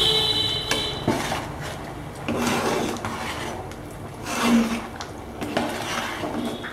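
A metal spoon stirring thick, simmering dal in a large aluminium pot, scraping and sloshing in uneven strokes, with a couple of knocks against the pot in the first second or so.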